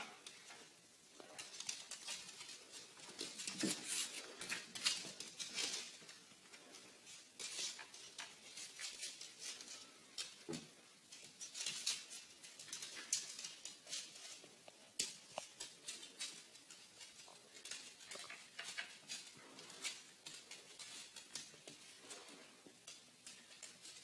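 Cats' claws clicking and scrabbling on a hardwood floor as two cats wrestle, heard as irregular light ticks and scratches.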